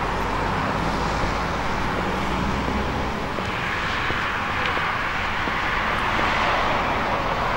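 Steady rushing engine noise, with a low rumble in the first few seconds, growing a little brighter about halfway through.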